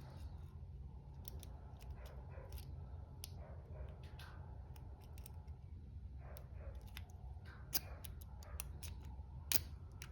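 Lock pick being raked and zipped through the pin tumblers of a brass padlock: many small, irregular metallic clicks and scrapes, with a couple of sharper clicks near the end. A steady low hum runs underneath.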